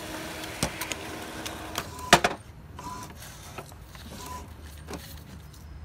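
Epson EcoTank inkjet printer printing a page: the print-head carriage runs steadily for about two seconds, a sharp clack comes just after, then quieter scattered clicks as the paper feeds.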